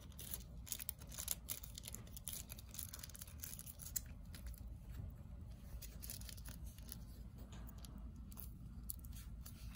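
Faint crinkling and crackling of aluminium foil being folded and handled, in scattered bursts over a low steady hum.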